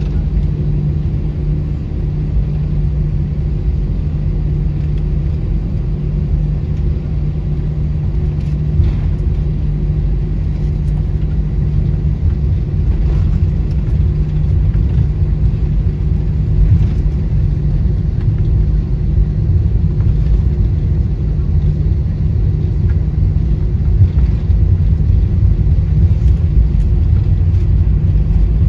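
Airbus A320 cabin noise on the ground after landing: the engines run low with a steady hum over the rumble of the wheels on the runway. Occasional faint knocks come through, and the noise grows slightly louder toward the end.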